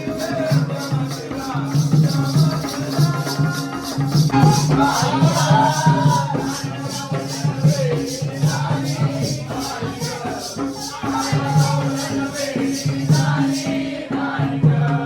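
Live Jakhadi folk music: a singer sings a gavlan over a steady low drone, with an even jingling beat about three times a second. The jingling drops out near the end.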